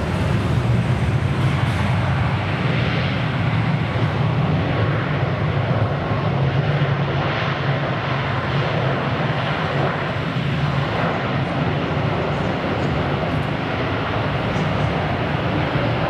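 Boeing 777 jet airliner's engines giving a steady, continuous roar as the aircraft rolls along the runway.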